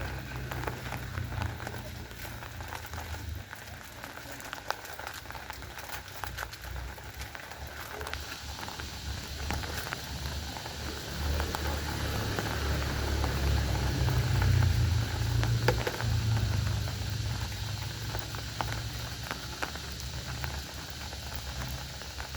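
Something boiling and bubbling in a pot over a camp stove, with scattered crackles and a low rumble underneath; it swells louder around the middle.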